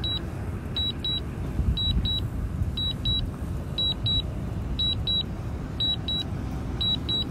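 A DJI Mavic Air's controller alert double-beeps high, about once a second, while the drone descends on automatic landing. Under it runs a steady low rumble.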